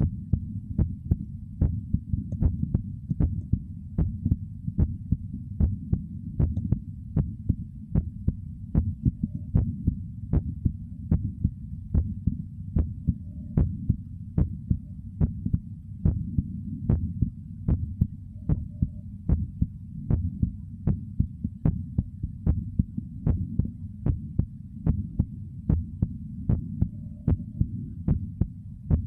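Human heartbeat: a steady, evenly spaced thumping over a continuous low rumble.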